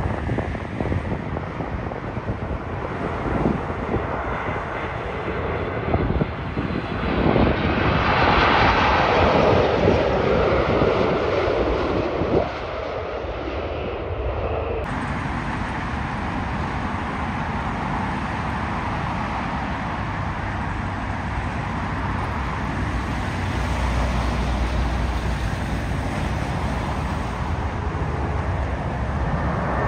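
Jet airliner engine noise: a four-engine Boeing 747 freighter swells to a peak as it comes in to land and fades as it touches down. After an abrupt cut about halfway, a twin-engine jet airliner climbs out after takeoff with steady engine noise and a deeper rumble building near the end.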